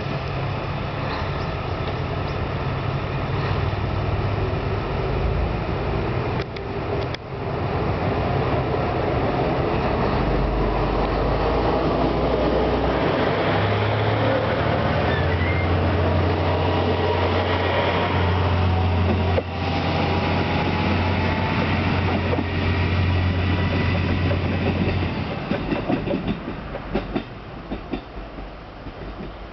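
Two-car KiHa 220 diesel railcar pulling away from a station and passing close by, its diesel engines running under power with a steady low drone. Near the end a run of wheel clicks over the rail joints as it moves off and the sound fades.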